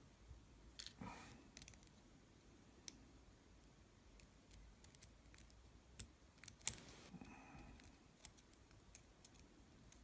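Faint, scattered small metal clicks and a couple of brief scrapes: tiny pins and springs of a Falcon pin tumbler lock being handled and taken out as the lock is disassembled. The loudest click comes near the end.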